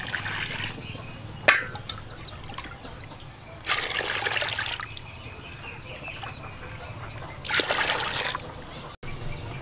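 Bowlfuls of water poured into an aluminium pot of flour and sugar, splashing in three separate pours of about a second each: near the start, around four seconds in, and near the end. A single sharp knock comes shortly after the first pour.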